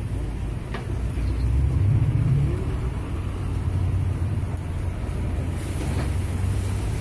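Steady low rumble of street traffic under a couple of sharp knocks on the steel taco griddle. About five and a half seconds in, a high hiss starts as something hits the hot griddle and sends up steam.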